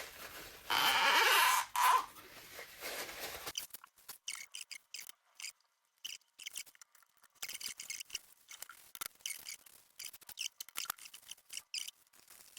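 Cloth being rubbed around inside a brake master cylinder to clean out grime: a loud scrubbing rub about a second in, then many short, faint squeaks and ticks.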